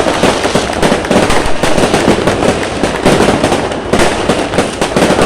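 Aerial fireworks going off in a dense, continuous barrage of overlapping bangs and crackles, with no break.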